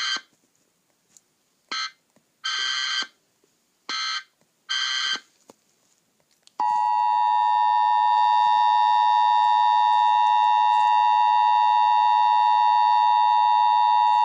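Emergency Alert System tones: a few short bursts of stacked high tones from the alert header, then, about six and a half seconds in, the steady two-tone EAS attention signal begins and holds.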